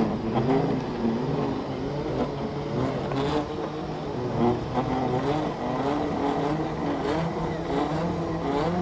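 Off-road Segway's electric drive motors whining, the pitch wavering up and down as its speed changes, over a low rumble from the tyres on a rough dirt track.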